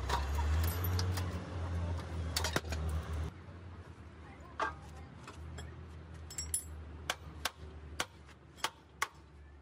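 Hand hammer striking the steel brake parts of a heavy truck's rear wheel hub: about ten sharp knocks at irregular intervals. Under the first three seconds runs a low steady hum that then drops off.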